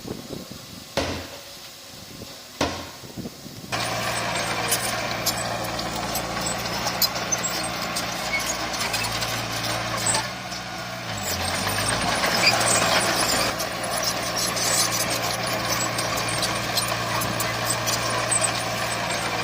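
Heavy diesel engine of earthmoving machinery running close by. It cuts in abruptly about four seconds in after a quieter start with a couple of knocks, with scattered clicks and rattles over it. Near the middle the engine note dips briefly, then comes back louder.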